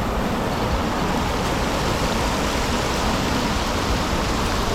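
Wind buffeting the microphone: a steady, rushing noise, heaviest in the low end, with no pauses or distinct knocks.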